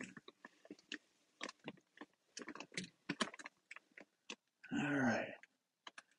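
Faint, scattered clicks, taps and light knocks of a phone being handled while a man moves about in a pickup bed under a bed cover and leans out the open back. About five seconds in, a man's voice is heard briefly.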